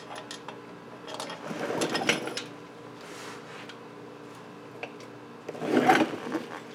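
Hand work on a car's AC compressor mounting: metal parts rubbing and scraping as the compressor bolts are started by hand, in two short bouts, the louder one near the end, with a few small clicks between.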